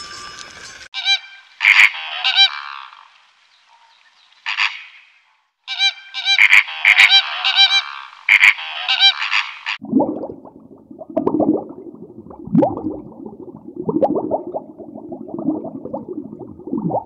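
A flock of flamingos honking in repeated loud bursts. About ten seconds in, this gives way to a beluga whale's lower, pulsed calls with short rising and falling glides.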